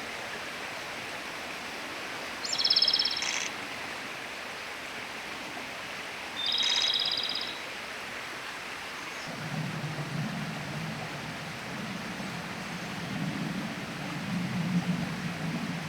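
Japanese robin singing: two short, high song phrases about four seconds apart, each an opening note followed by a rapid trill, over a steady hiss. From a little past halfway, a low, uneven rumble joins.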